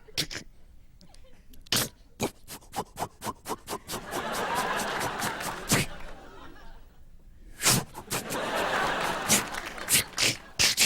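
Vocal sound effects made into a microphone: a run of quick sharp mouth clicks, about three to four a second, with two stretches of studio audience laughter between them.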